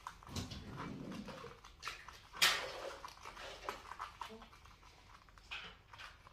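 Thin plastic stirrer scraping and tapping inside a plastic cup as volcano-kit eruption powder is mixed, giving a run of small clicks with one sharp louder knock about two and a half seconds in. A brief low rumble sounds in the first second.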